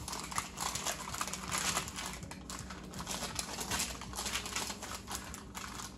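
Parchment paper crinkling in rapid, irregular crackles as it is folded and tucked around a dough log in a baking dish.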